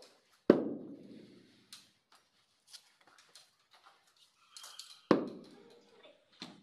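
Carpet-fitting work: two sharp thuds, about half a second in and about five seconds in, each ringing on in the room, among small taps and rustles as the carpet is pressed and tucked along the wall.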